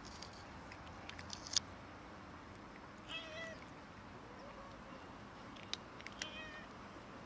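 A cat meowing in short calls, a couple about three seconds in and again near the end, with a few sharp clicks, the loudest about a second and a half in.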